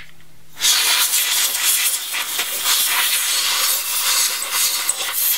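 Can of compressed air (air duster) spraying through its straw nozzle, blowing dust and lint out of a sewing machine's bobbin area. One long hiss starts about half a second in, wavers in strength, and stops near the end.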